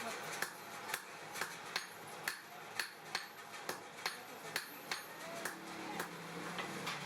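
Blacksmith's hammer striking hot steel on an anvil while forging tongs, in a steady rhythm of about two blows a second, each blow a sharp metallic hit.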